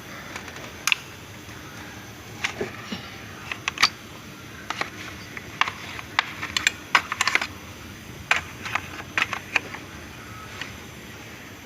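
Irregular light metallic clicks and taps of hand tools working on the fuel-line fittings and connectors of a diesel engine, coming in scattered clusters, busiest in the middle.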